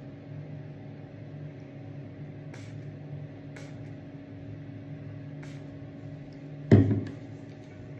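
Three short hissing sprays from a Nuxe pump spray bottle, about two and a half, three and a half and five and a half seconds in, over a steady low hum in the room. A single loud thump comes near the end and is the loudest sound.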